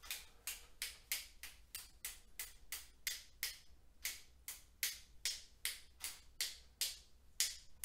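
One paintbrush being whacked against another to flick watered-down acrylic paint onto a canvas: a steady run of sharp taps, about three a second.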